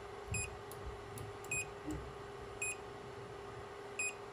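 Anycubic Kobra Plus 3D printer touchscreen giving a short high beep at each key press: four beeps about a second apart while a temperature is keyed in, over a steady low hum.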